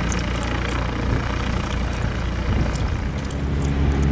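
Replica SPAD VII biplane's piston engine running steadily on the ground. About three seconds in, a louder, steadier engine note takes over.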